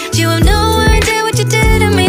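Background pop/R&B song with a steady beat, bass and a sung melody.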